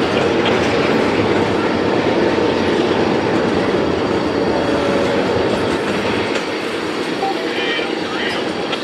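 Double-stack intermodal train's loaded well cars rolling past: a steady rumble of steel wheels on rail, easing slightly in the last few seconds.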